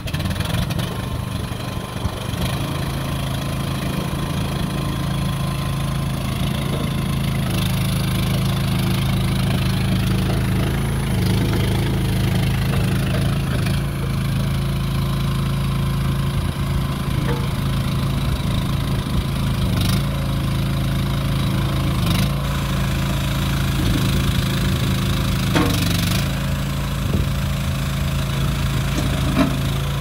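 AGROTK YF2-380 mini stand-on skid steer's engine running steadily, its pitch stepping up and down several times as the loader arms and bucket are worked, with a few sharp knocks in the second half.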